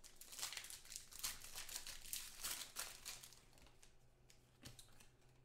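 Foil trading-card pack wrapper crinkling in the hands, in quick crackles that are loudest in the first three seconds and thin out toward the end.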